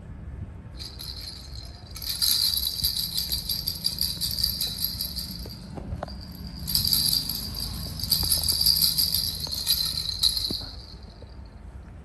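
A baby's plastic hand-bell rattle toy being shaken, its small bells jingling in two long spells with a short break in the middle.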